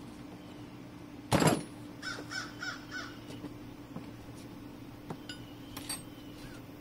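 About a second and a half in, a brief loud clatter of metal as the injection pump and tools are handled on the table. After it a bird gives a quick series of short rising-and-falling calls, then a few more near the end, over a faint steady hum.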